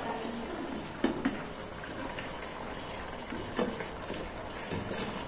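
Pot of water with tomatillos heating on a gas stove, a steady hiss of water close to the boil. A few light knocks, the clearest about a second in.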